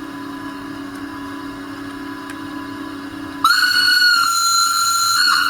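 Railtechnix sound decoder of an LGB model Rhaetian Railway Ge 4/4 III electric locomotive, played through the model's small speaker: a low steady electric hum, then about three and a half seconds in a loud, high horn tone comes in suddenly and holds.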